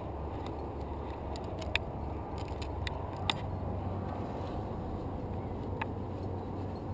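Steady low rumble of wind buffeting the climber's camera microphone, with three sharp clicks, likely climbing gear or hands and shoes on the rock, as the climber moves up.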